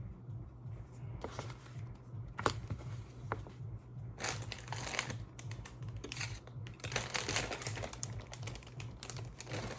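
Small plastic Lego pieces clicking and rattling as they are rummaged through: a few single clicks, then several longer bursts of clattering and rustling. A steady low hum runs underneath.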